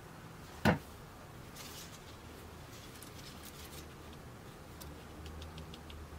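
Lemons being handled in a wicker basket: one sharp knock just under a second in, then soft rustling and a quick run of small ticks near the end.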